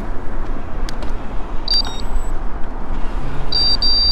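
Steady wind and road rush on a moving bicycle's camera microphone, with two pairs of short, high electronic beeps: the first pair a little under two seconds in, the second near the end.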